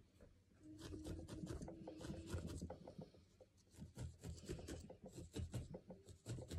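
Felting needle stabbing again and again into short-fibre wool, a faint, uneven run of quick pokes several times a second.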